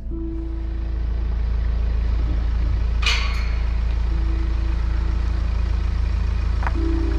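A car running, heard as a steady low rumble that builds a little over the first couple of seconds, with a short hiss about three seconds in.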